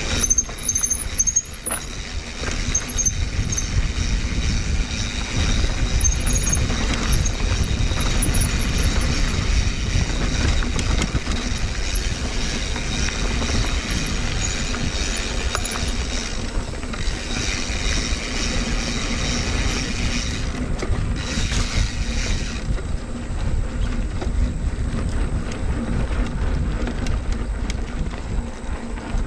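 Mountain bike ridden along a dirt trail: a steady rumble of wind and tyre noise with scattered small clicks and rattles from the bike.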